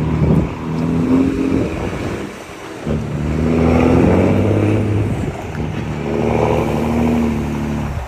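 Iveco Tector truck's diesel engine pulling hard through the gears. Its note rises in three stretches and drops off briefly about two and a half and five and a half seconds in, as the gears are changed.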